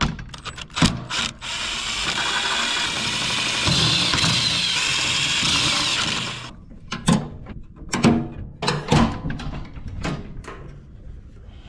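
A power tool runs steadily for about five seconds, with sharp clicks and knocks of metal parts and hand tools before it starts and after it stops, during work on a fuel pump.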